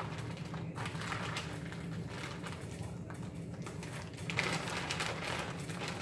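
Plastic bag of grated cheese crinkling in bursts as it is handled, loudest about four and a half seconds in, over a steady low hum.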